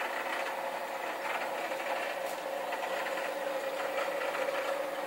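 Steady mechanical hum of running aquarium equipment: one constant tone over a faint hiss.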